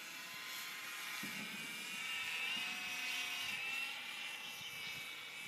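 Electric motor and propeller of a HobbyZone Mini Super Cub RC plane whining in flight, its pitch drifting slightly. It grows louder about two seconds in as the plane comes closer, then eases off a little.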